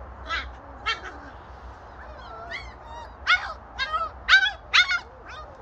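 German Shepherd puppy yelping: about nine short, high-pitched cries, each dropping in pitch, a few spaced out at first, then louder and coming quickly one after another in the second half.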